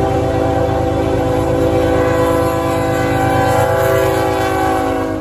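A diesel locomotive's air horn sounds one long blast as a chord of several notes, dipping slightly in pitch about three and a half seconds in as the lead unit passes close by, then cutting off near the end. A pulsing diesel engine rumble runs underneath.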